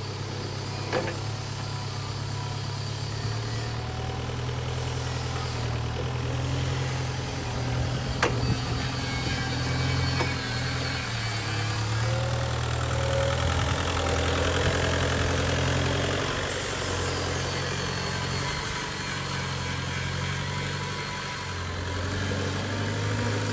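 Linde H25 diesel forklift's engine running as the truck drives and manoeuvres, its note rising and falling with the throttle. A few sharp clicks sound along the way.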